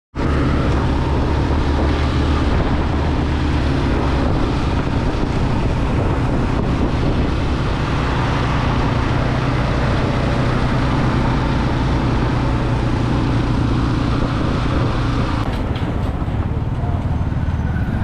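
Yamaha motorcycle engine running steadily under way, with wind rushing over the on-bike microphone. About fifteen seconds in the engine note drops as the rider eases off and slows.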